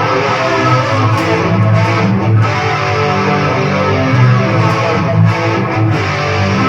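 Two recorded guitar tracks playing back together, layered, with reverb and echo on them.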